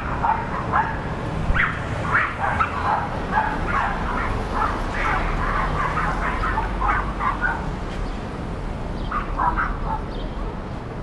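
A dog barking, short barks in quick runs with a pause about two-thirds of the way through, then a few more barks.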